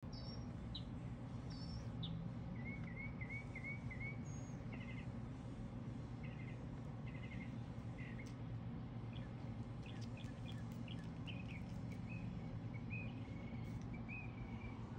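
Birds chirping in short calls, some in quick runs of several notes, over a steady low hum.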